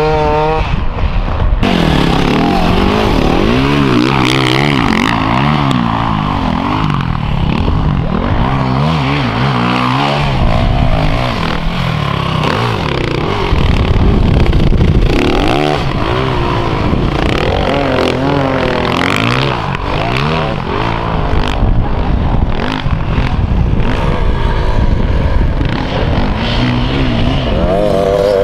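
Enduro dirt bike engines revving hard in sand, pitch rising and falling over and over as the throttle is worked, with more than one bike heard at once.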